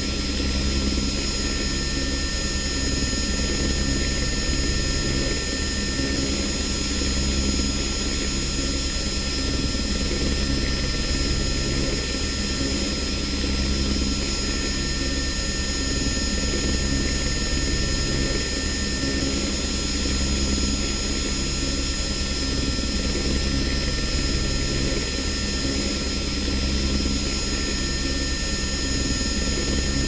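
Interior of a helicopter in cruise flight: a steady low drone from the rotor and engine, with several steady high-pitched tones running over it.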